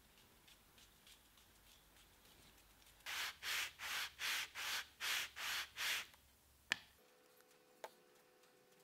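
Edge of a thin wooden strip rubbed back and forth on sandpaper glued to a flat stone, about eight quick scraping strokes, flattening the edge. A single sharp tap follows a moment later.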